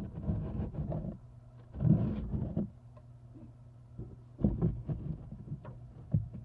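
Knocks and scrapes on a wooden owl nest box as it is handled and cleaned, in clusters at the start, about two seconds in, and again from about four and a half seconds, over a steady low electrical hum.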